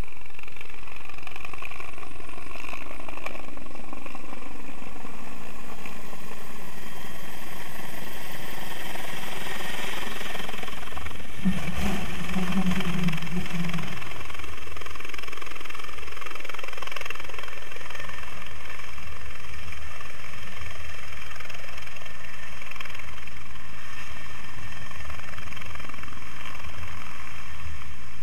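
Helicopter with a slung Bambi bucket flying in low and passing close. Its whine slides down in pitch as it comes in and is loudest about twelve seconds in. It then settles into a steady pulsing rotor beat as it hovers for the bucket to be filled.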